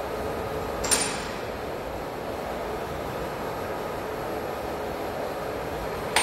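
Large WMW Zerbst CNC lathe running with its 4-metre faceplate turning: a steady machine hum with a couple of faint held tones. Two sharp knocks cut through it, one about a second in and one at the end.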